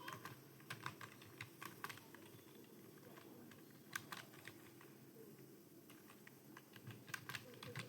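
Faint computer keyboard keystrokes from steady typing. They come in uneven runs with short pauses: busier in the first two seconds, scattered in the middle, and bunched again near the end.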